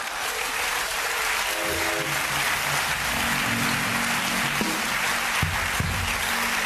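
Studio audience applauding steadily. Music comes in over the clapping about a second and a half in, a few short notes and then held lower notes.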